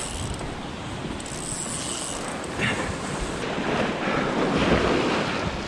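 Sea surf washing against rocks, with wind buffeting the microphone; the wash grows louder about halfway through.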